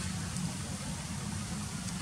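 Steady outdoor background noise: a low rumble with a hiss over it and no distinct events.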